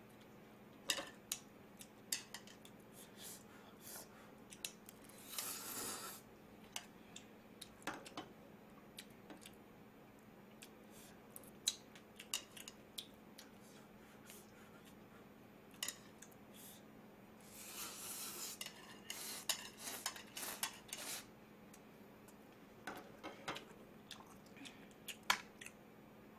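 Faint, scattered clicks and taps of metal chopsticks against a ramyeon pot, a plate and a plastic container while eating, with two longer stretches of noisy eating sound about five and eighteen seconds in.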